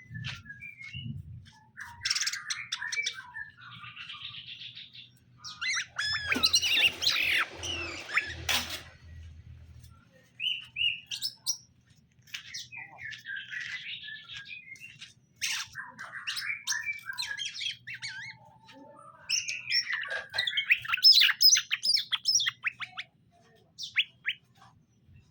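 Cucak ijo (green leafbird) singing in bursts of quick, varied chirps and trills with short pauses between them. The longest, densest burst comes about six seconds in.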